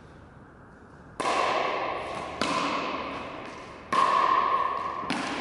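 Pickleball paddles hitting the plastic ball in a rally: four sharp pops about a second and a quarter apart, starting about a second in, each echoing in a large hall.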